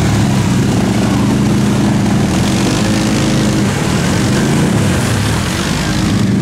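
ATV engine running steadily.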